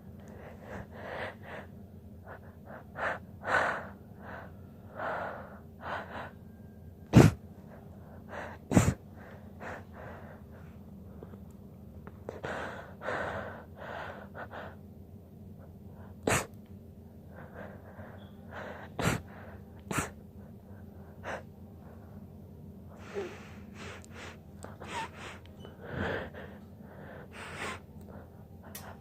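Someone holding back sneezes: repeated sharp gasping in-breaths build up, broken by about five short, clipped, stifled sneezes, the loudest about seven seconds in.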